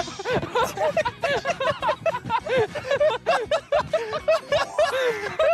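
Men laughing hard, in quick repeated bursts that overlap.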